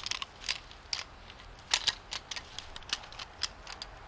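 Metal carabiners clinking and clicking as one is picked out of a set of climbing hardware: a scatter of sharp, irregular metal clicks.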